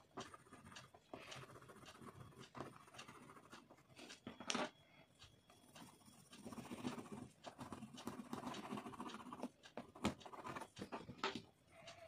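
Wax crayon scratching back and forth on thick paper in quick, dense hatching strokes, with a few sharp clicks, the loudest about four and a half and ten seconds in.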